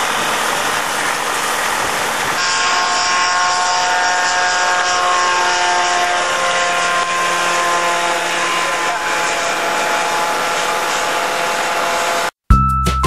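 The RagWing Ultra Piet's Kawasaki 440 two-stroke engine and propeller at full power on the takeoff run and climb-out. At first it is a noisy rush; from about two seconds in it is a droning whine of several held tones that slowly fall in pitch. Music starts just before the end.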